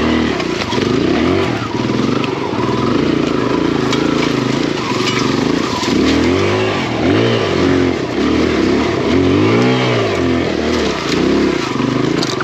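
Single-cylinder four-stroke engine of a big-bore Kawasaki KLX140 dirt bike (170 cc kit, aftermarket BBR exhaust) pulling through rough trail, its revs rising and falling again and again as the throttle is worked, about once a second in the second half.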